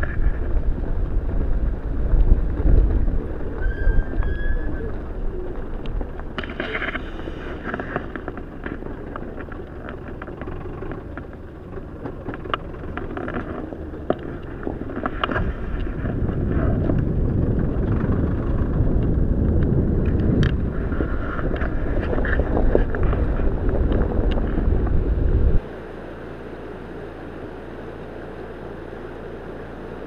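Rumble and rattle of a car driving over a rough gravel road, picked up by a camera on the hood, with occasional sharp knocks. It cuts off suddenly near the end to a quieter steady noise.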